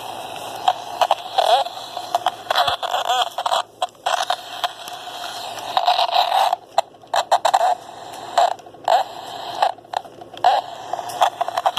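Walkie-talkie speaker putting out a weird noise: crackly static with warbling, wavering tones that cut in and out in short bursts, with sudden brief dropouts.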